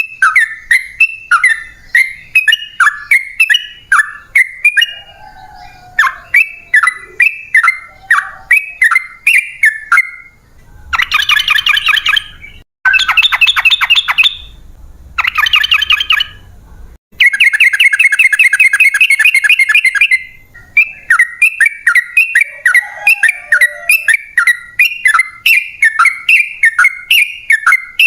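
Yellow-vented bulbul (trucukan) singing: a quick run of short falling chirps, two to three a second. In the middle of the stretch the chirps give way to several seconds of long, rapid rattling trills (the 'ropel panjang'), then the chirping resumes.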